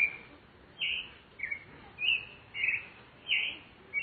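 Rufous-bellied thrush (sabiá-laranjeira) singing: a string of about six short whistled phrases with a pause of under a second between each.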